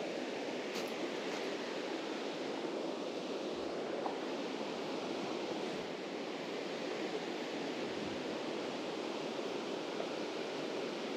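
Mountain stream water rushing steadily over rocks, an even hiss with no break.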